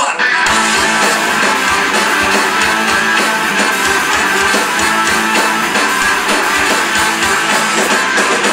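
Rock band playing live at full volume. The whole band comes back in just after the start with drums and electric guitar, and a trumpet plays near the end.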